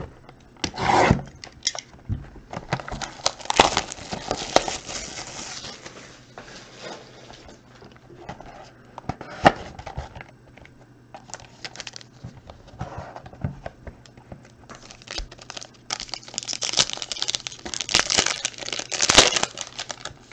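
Hands opening a trading-card box and handling the foil-wrapped pack inside: irregular rustling, crinkling and clicks of cardboard and foil, with a longer run of foil crinkling and tearing toward the end as the wrapper is peeled open.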